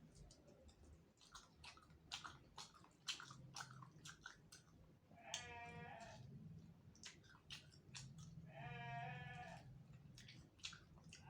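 Faint close-up chewing and crunching of spicy soft-boned chicken heads, a run of sharp crackly clicks, broken twice by a drawn-out vocal sound from the eater, the second one longer.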